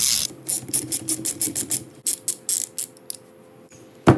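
Ratchet wrench with a 14 mm Allen-bit socket clicking in quick runs, about six clicks a second, as it unscrews a piston access plug from a Subaru EJ25 engine block. A loud knock comes near the end.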